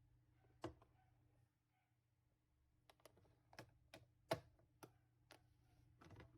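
Near silence broken by about eight or nine faint, irregular clicks and taps.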